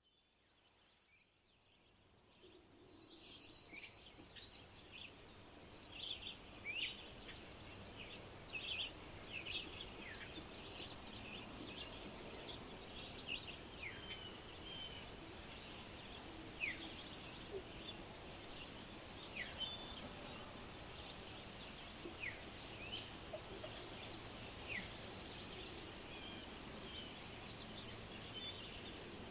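Outdoor ambience with small birds chirping in short, scattered calls over a steady background hiss, fading in over the first few seconds.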